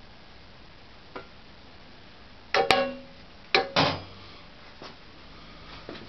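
Irregular metallic knocks and clunks against the sheet-metal cabinet stand of a Boxford lathe, a few leaving a brief ringing tone; the loudest come as a close pair and then two more in the middle, with fainter taps before and after.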